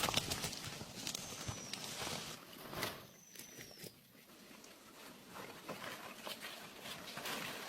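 Footsteps and rustling through vegetation outdoors, with scattered clicks and snaps, louder in the first half. A faint thin high whistle slides down in pitch twice.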